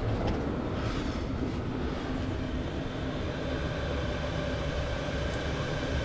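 Chinese diesel parking heater running steadily in its start-up phase: a constant rushing rumble from its fan and burner with a faint steady hum over it, while it is still pushing diesel through the system.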